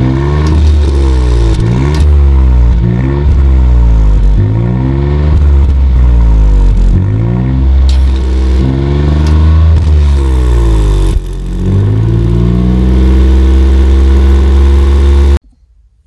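Ford Fiesta ST Mk8's 1.5-litre turbocharged three-cylinder engine heard at its tailpipes, revved in quick throttle blips about once a second, then held at a steady speed for the last few seconds before the sound cuts off suddenly.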